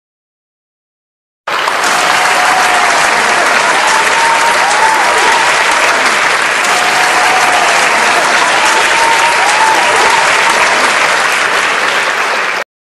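A large audience applauding, a dense steady clatter of many hands, starting suddenly about a second and a half in and cutting off abruptly near the end.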